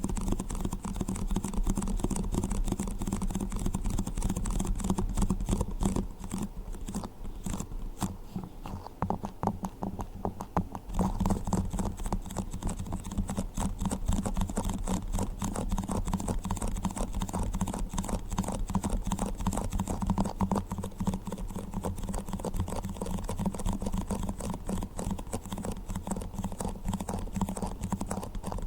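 Yogurt cups being tapped in a rapid, continuous stream of light clicks, which thin out and soften for a few seconds between about six and eleven seconds in.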